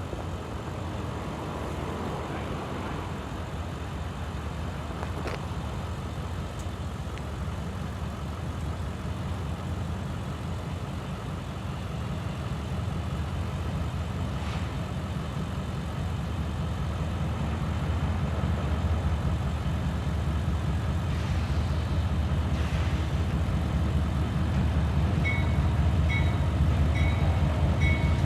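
Low rumble of an approaching diesel train, growing steadily louder. Near the end a short bell-like tone starts repeating about once a second.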